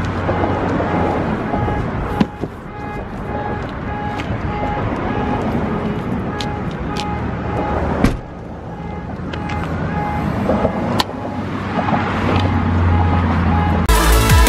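Road traffic, cars passing that swell and fade several times, over faint background music. Near the end loud drum-and-bass music cuts in.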